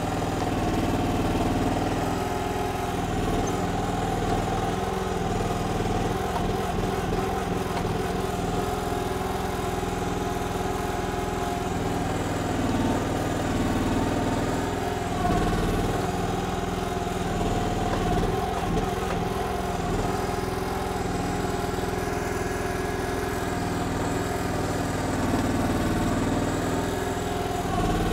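Briggs gas engine of a KYMRON XH14 mini excavator running steadily while it digs, with its hydraulics working. The engine note swells briefly a few times as the hydraulics load up.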